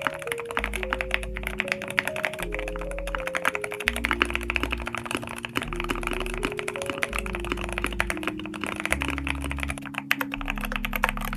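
Mechanical keyboard being typed on quickly: a dense, steady run of keystroke clacks over background music with held synth and bass notes.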